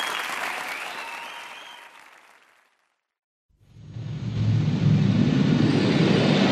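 Crowd applause fading out over about two and a half seconds, a second of silence, then the next synth-pop song's intro fading in with a low bass wash.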